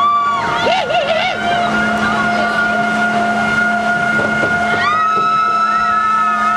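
Suspended looping coaster train being pulled up the lift hill: a steady mechanical hum from the lift drive. A rider lets out a short call at the start and a long held call about five seconds in that lasts about two seconds.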